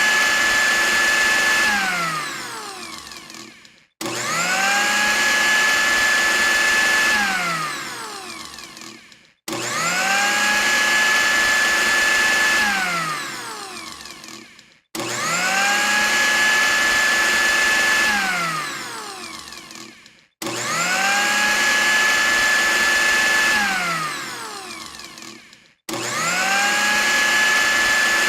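Electric blender motor switched on and off over and over: each time it spins up quickly to a steady high whine, runs for about two seconds, then winds down with a falling pitch once switched off. It starts again about every five and a half seconds.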